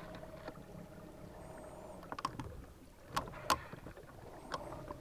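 Quiet ambience on a fishing boat drifting on calm water: a faint steady hum with a thin tone that fades out partway through and returns near the end, a few sharp clicks from rod and reel handling, and faint high bird chirps.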